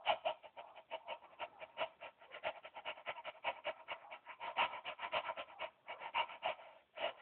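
Dog licking at close range: rapid wet smacking strokes mixed with panting breaths, about six or seven a second, with no break.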